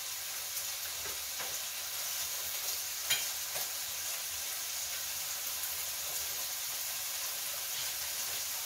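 Food sizzling steadily on a tabletop grill, with a few light clicks of tongs and cutlery, the sharpest about three seconds in.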